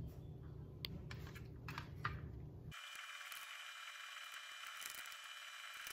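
Faint rustling and a few light clicks of hands tying butcher's twine around a raw pork tenderloin on a baking tray. A low background hum drops out abruptly about three seconds in, leaving a thin hiss.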